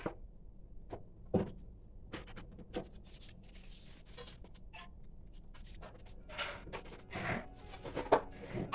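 Handling noise from a wooden wall shelf board being worked on and taken off its wall rail: scattered knocks, scrapes and rustles. The sharpest knocks come about a second and a half in and near the end.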